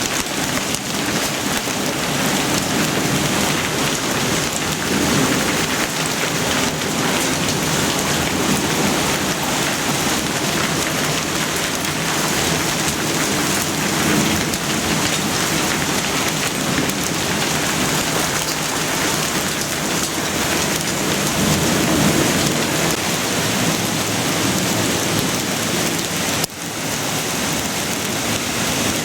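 Heavy rain pouring down steadily in a thunderstorm, a dense unbroken hiss of water, dipping briefly for a moment near the end.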